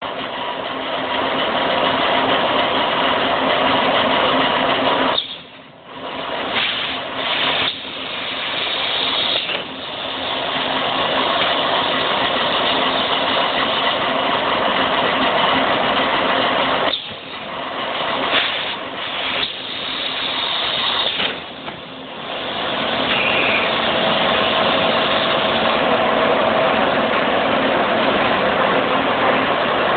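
A 5 kg rice packing machine running with a steady, loud mechanical noise. Twice, about twelve seconds apart, the noise cuts out briefly and then breaks off a few more times over the next few seconds, a repeating work cycle.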